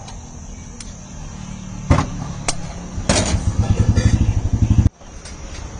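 An engine running close by with a fast, low pulsing throb, coming in about three seconds in and cutting off abruptly near the end. A couple of sharp knocks come before it.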